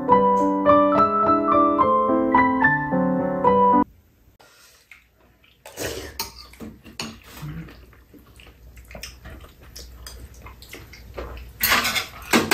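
Piano music that cuts off suddenly about four seconds in. After a short lull, spoons and chopsticks clink and scrape against ceramic bowls as two people eat soup, with a louder burst of clatter near the end.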